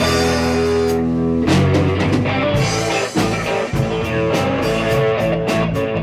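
Live rock band playing with electric guitar, bass guitar, keyboard and drum kit. A chord is held for about the first second and a half, then the band plays on over a steady drum beat.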